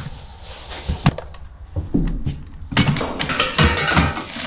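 Hands rummaging through a plastic storage tote of tools and bags: items knocking and clattering against each other and the tote, with a sharp knock about a second in and the busiest clatter and rustling in the second half.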